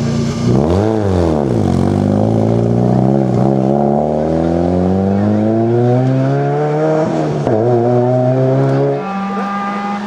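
Ford Fiesta rally car's engine pulling away out of a tight bend: a quick rise and fall in revs about a second in, then a long steady climb in pitch as it accelerates away, with a brief dip for a gear change about seven seconds in. Near the end the sound cuts to another rally car's engine holding a steady pitch.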